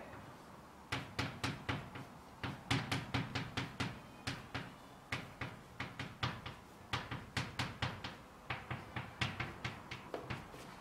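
Chalk writing on a blackboard: an irregular string of short, sharp taps and scrapes, several a second, as characters are written stroke by stroke.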